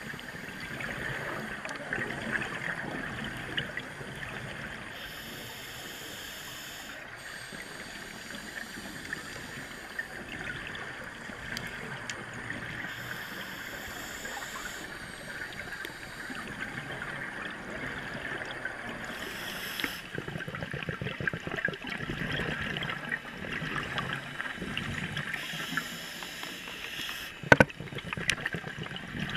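Underwater sound picked up through a camera housing: a scuba diver's regulator breathing and exhaust bubbles gurgling, rising and falling in slow swells over a steady hiss. A single sharp knock sounds near the end.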